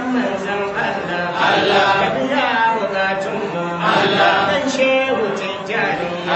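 A man's voice chanting Islamic dhikr into a handheld microphone, sung in long phrases that rise and fall in pitch, with short breaks between them.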